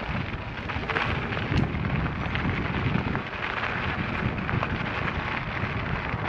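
Wind buffeting the on-board camera's microphone while a Specialized Turbo Levo e-mountain bike climbs a rough 4WD track, its tyres crunching and rattling over loose stones with scattered sharp knocks.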